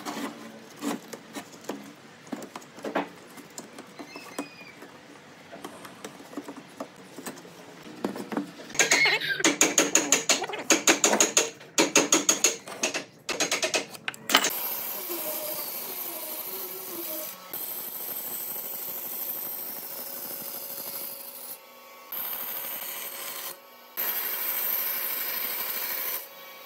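Woodworking tools on wood: scattered light taps and knocks, then from about eight seconds a run of loud, quick rasping strokes, several a second. From about fourteen seconds a steady machine whirr with a hiss takes over and drops out briefly twice.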